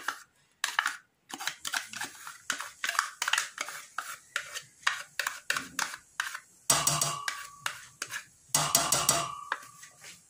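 Metal spoon scraping chocolate pudding out of plastic dessert cups into a stainless steel saucepan: a run of small scrapes and clicks, with two louder clattering knocks that ring briefly, about two-thirds of the way through.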